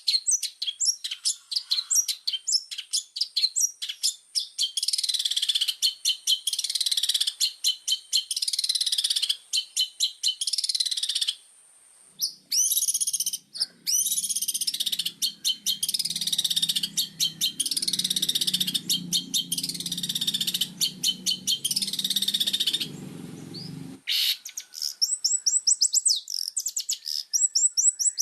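Long-tailed shrike (cendet) singing hard: rapid runs of sharp, high notes and chattering phrases a second or two long, with brief breaks and a short pause about eleven seconds in. From about twelve seconds in, a low buzzing sound runs underneath the song and cuts off suddenly about twenty-four seconds in.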